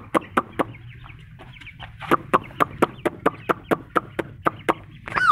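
Ducklings peeping: a quick, even run of short peeps, about four a second, ending in one louder peep that falls in pitch.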